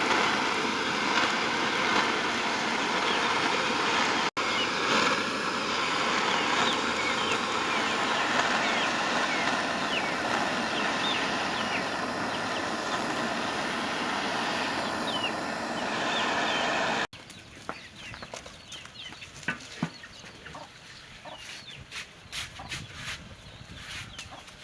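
Chickens clucking over a loud, steady rushing noise. After a cut about two-thirds of the way through, it turns quieter, with scattered short clicks.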